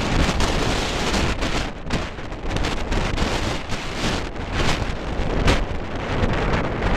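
Wind buffeting the microphone in irregular gusts, a loud rumbling rush with no clear engine tone.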